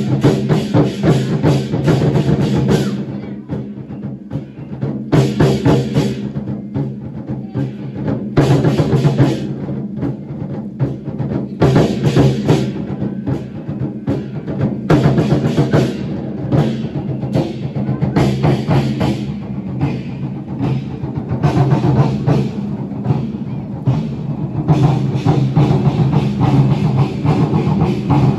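Drum troupe beating large barrel drums in unison, loud rhythmic passages alternating with quieter stretches, over backing music with a steady low tone.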